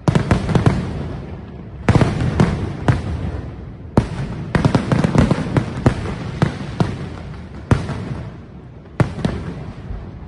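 Aerial fireworks bursting overhead: five sharp bangs, each followed by a dense crackling that fades away.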